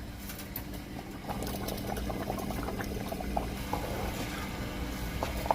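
Pot of meat and palm-oil stock for Afang soup bubbling steadily, with scattered small pops over a faint steady hum.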